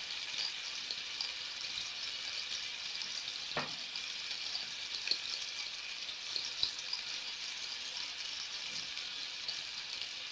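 Tomato and potato slices sizzling in hot olive oil in a frying pan: a steady hiss with small crackles. A few faint taps as potato slices are laid into the pan.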